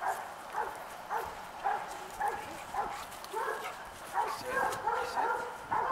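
Dog barking over and over, about two barks a second, picking up a little near the end.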